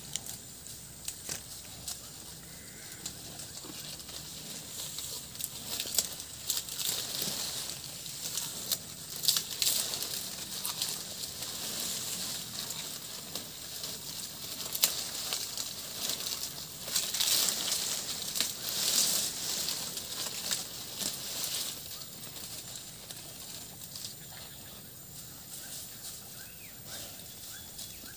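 Cow grazing, tearing and cropping mouthfuls of grass with crisp, irregular ripping and rustling of stems and leaves, louder in a couple of stretches.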